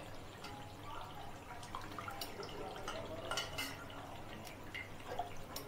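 Sugar syrup dripping from freshly soaked malpuas set to drain in a strainer, with a few faint clicks of the strainer and utensils.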